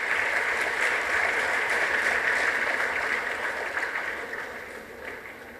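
Audience applauding, a steady patter of many hands clapping that dies away over the last two seconds.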